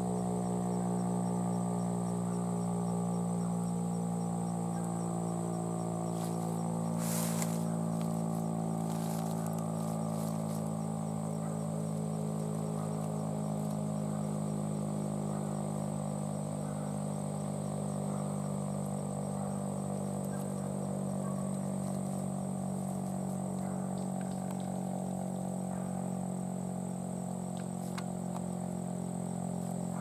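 Federal Signal STH-10 dual-tone siren sounding a steady chord of several tones during a weekly test, with no rise or fall in pitch.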